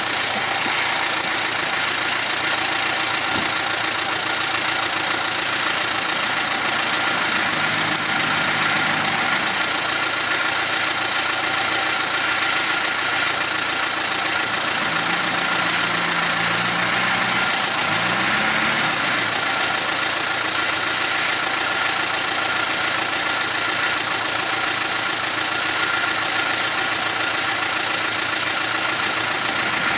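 Land Rover Defender's engine running at low revs as the 4x4 crawls over creek-bed rocks. There is a brief change in revs about a quarter of the way in, and a longer one past halfway that rises in pitch.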